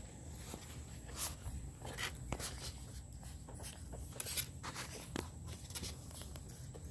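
Puppies moving about: irregular scratches, rustles and light taps, with a few sharper scrapes around the middle.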